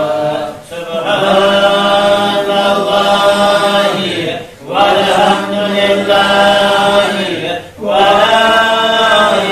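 Men chanting a slow Arabic devotional chant, long drawn-out sung phrases broken by short pauses for breath about a second, four and a half and nearly eight seconds in.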